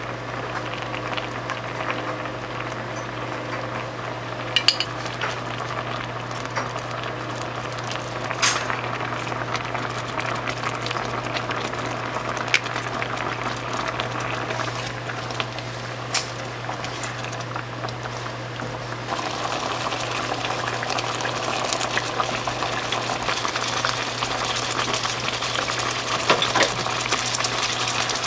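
Cream pasta sauce simmering and bubbling in a frying pan, getting louder about two-thirds of the way through, with a few sharp clicks of a wooden spatula and spoon against the pan and a steady low hum underneath.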